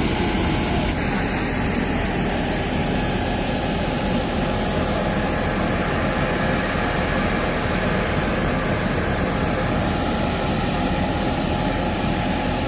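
Steady noise of a jet airliner's engines and rushing air heard inside the cabin, even and unbroken, with a few faint steady tones over it.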